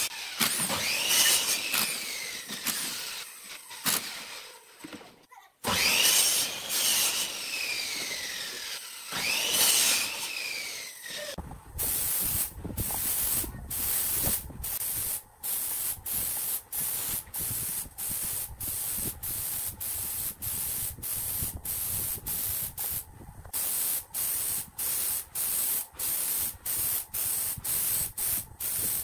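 Power drill driving screws into a metal lathe faceplate: the motor whines up and winds down three times. Then a long run of short spray bursts, about two a second, as a finish is sprayed onto a turned segmented wooden vase.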